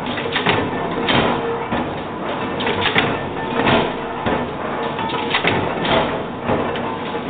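Power punch press blanking circles from stainless steel coil strip, its strokes knocking repeatedly about every half to one second over the steady running noise of the press and its coil feeder.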